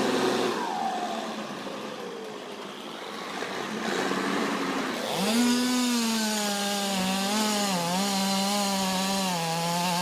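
Chainsaw engine dropping off to idle, then revving back up about halfway through and running at full speed, its pitch dipping and recovering as it bites into the wood.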